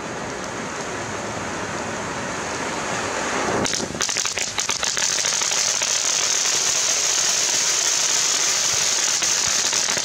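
Cone firework fountain burning with a steady hiss; about four seconds in it changes to a brighter, higher hiss full of rapid crackling.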